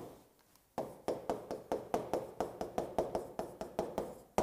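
Quick run of taps and scrapes of handwriting on the glass of a large touchscreen display, about five or six strokes a second, starting about a second in.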